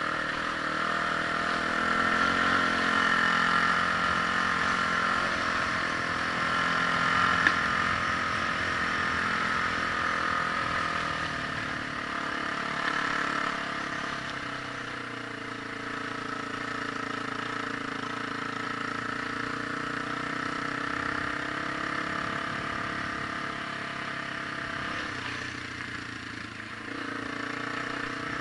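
Vehicle engine running steadily at low speed, its note rising and falling gently, with a single sharp click about seven and a half seconds in.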